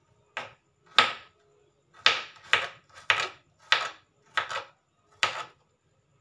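Kitchen knife slicing garlic cloves on a plastic cutting board: about eight sharp knife strokes at an uneven pace, roughly one every half second to second.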